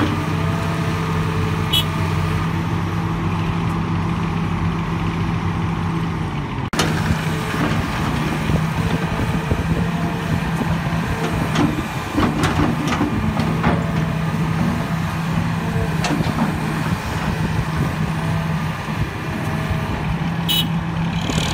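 Heavy diesel engines of a tipper truck and excavator running steadily while the trailer's hydraulic hoist raises the bed and rock and soil slide out of the tailgate. There is a brief break in the sound about seven seconds in, after which it turns rougher.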